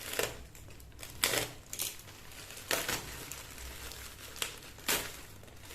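A shipping packet being torn open and handled: a handful of separate crinkles and rips of packaging.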